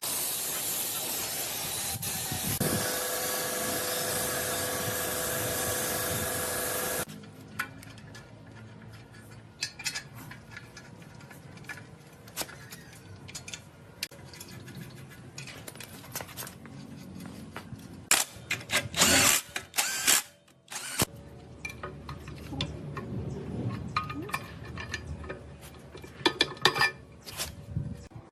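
A power tool runs with a loud, even hiss and a steady whine for about seven seconds and cuts off suddenly, followed by scattered clicks, knocks and clinks of tools and parts being handled.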